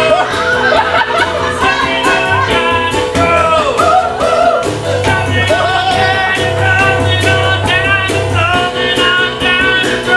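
Live rock-and-roll style music played on keyboard with a steady beat, with singing over it.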